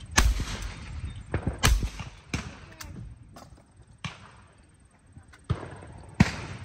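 Shotgun shots at sporting clays: two sharp reports about a second and a half apart near the start, a pair on a clay target, followed by several fainter shots.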